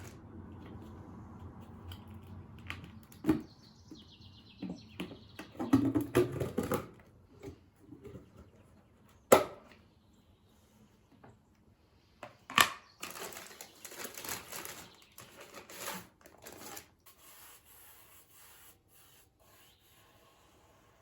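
Household cleaning by hand: rubbing and scrubbing noises broken by a few sharp knocks of objects being handled and set down, with a hissing stretch in the middle. It grows quieter toward the end.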